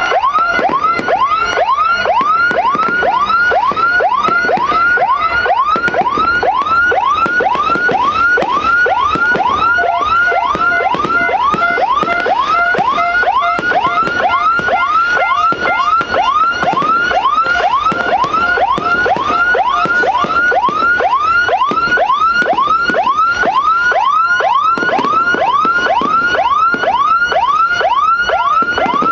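Electronic police-escort (patwal) siren, a 9–12-tone siren module driving a 10–15 W TOA horn speaker, sounding a fast yelp. It makes quick sweeps that fall in pitch and repeat evenly at about two and a half a second.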